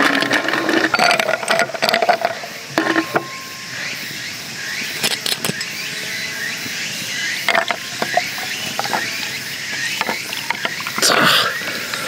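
Ice cubes clinking in a glass, followed by liquid being poured over the ice to make a highball.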